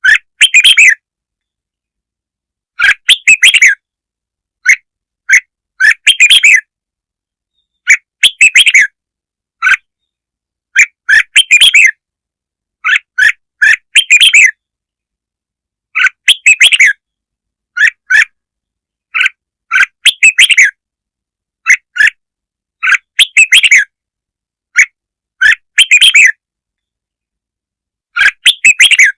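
Red-whiskered bulbul song: short, loud, warbled phrases of about a second each, repeated every one to three seconds with dead silence between them.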